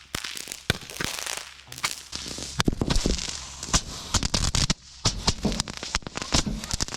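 Consumer fireworks going off: a rapid, irregular string of sharp cracks and pops over a continuous hiss.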